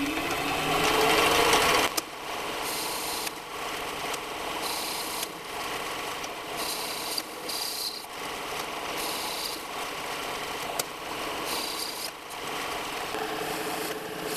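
Small benchtop metal lathe spinning up with a rising whine, then running steadily while its cutting tool turns down an aluminum workpiece. A high scraping from the cut comes and goes every second or two.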